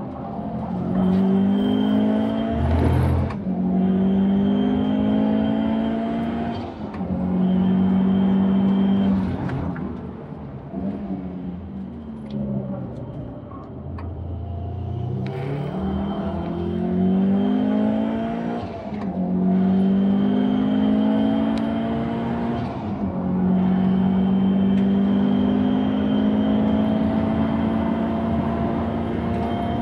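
Subaru VAB WRX STI's turbocharged boxer four, enlarged to 2.2 litres with a swapped turbine, heard from inside the cabin under hard acceleration. The engine note climbs in pitch through each gear and breaks off at every upshift. About halfway through it falls off for a few seconds, then climbs again from low revs.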